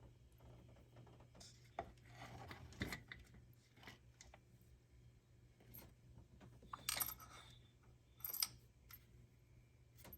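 Faint, scattered clicks and light metallic taps as new iridium spark plugs are handled and dropped into the spark plug wells, the clearest knocks about seven and eight and a half seconds in.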